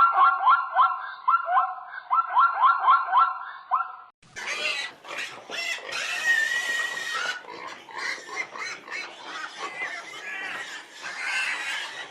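A dog yelping in quick repeated yips, about three a second. About four seconds in it gives way to pigs squealing and grunting.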